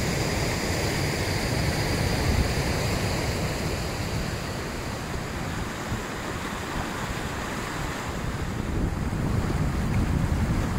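A hill river in spate after heavy rain, white water rushing steadily over rocks, with wind buffeting the microphone.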